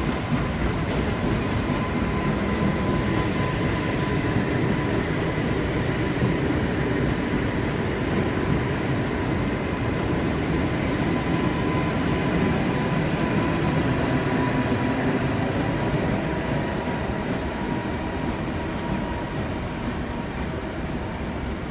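Electric multiple unit running past close by: a steady rumble of wheels on the rails with a faint, steady high whine that fades out about three-quarters of the way through.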